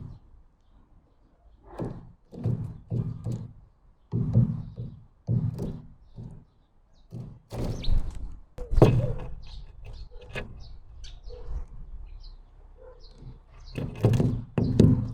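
Irregular knocks and thuds on a bird feeder close to the microphone, as birds land and peck, with a few short high chirps in the middle.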